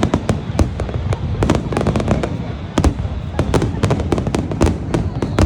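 Fireworks display: a rapid, irregular barrage of sharp bangs and crackles, several a second, over a continuous low rumble of booming bursts.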